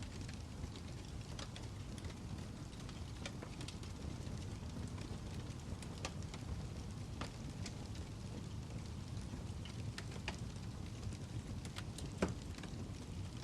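Wood fire burning in a fireplace: a steady low rumble of flames with scattered crackles and pops from the logs, and one louder pop near the end.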